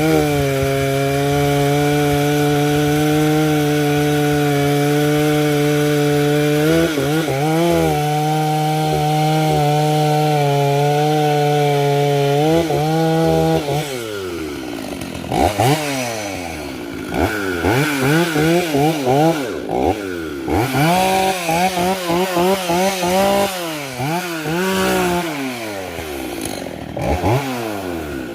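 Modified Husqvarna 372XP two-stroke chainsaw holding steady high revs while cutting wood for about the first half, dipping briefly once. From about halfway on, the throttle is blipped again and again, the revs rising and falling in quick succession.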